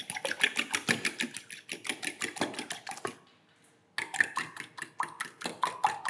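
A metal utensil beating egg, milk and oil in a glass mixing bowl: quick, even clinks against the glass, about six a second, stopping for under a second a little past the middle.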